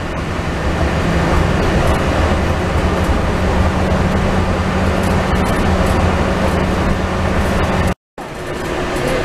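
Walt Disney World monorail running, heard from inside the front car: a steady hum and rumble of the train that grows louder over the first second. The sound cuts out for a moment near the end.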